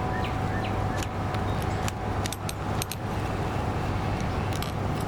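Synthetic winch line and a metal splicing fid being handled: scattered light metallic clicks and clinks over a steady low rumble.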